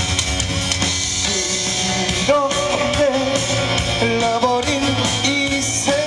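Backing music with drums and guitar playing through the PA, and a man's singing voice coming in a little over two seconds in.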